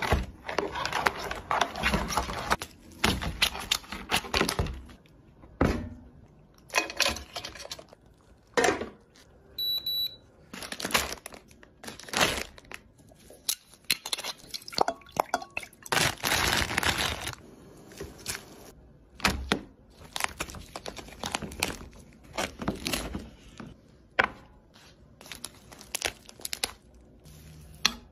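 Close-up kitchen handling sounds from preparing crab and lobster: a string of separate cracks, crunches and tearing noises, with a brief high ping about ten seconds in.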